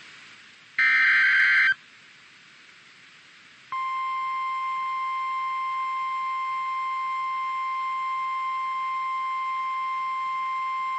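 NOAA Weather Radio SAME alert. About a second in comes the last of the screeching digital header bursts. After a short pause the steady single-pitch 1050 Hz warning alarm tone starts and holds, signalling that a warning, here a severe thunderstorm warning, is about to be read.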